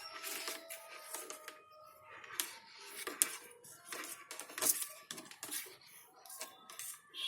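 Irregular light clicks and metallic taps, small metal parts and tools being handled and set down on a workbench.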